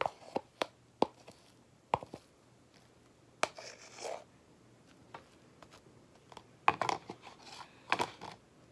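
Spoon clicking and scraping against a bowl as glue-based slime is stirred: scattered sharp clicks, a short scrape about halfway, and a busier run of scraping and knocks near the end.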